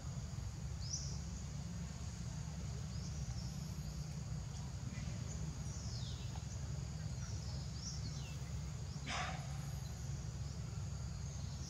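Outdoor ambience: a steady high insect drone over a steady low rumble, with several short high chirps that fall in pitch. A brief sharp sound comes about three quarters of the way through.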